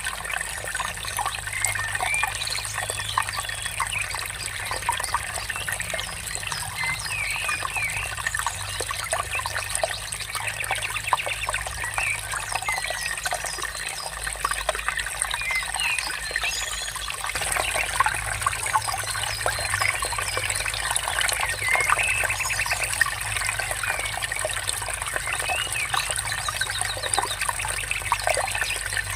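Water trickling steadily, with many birds chirping and trilling over it.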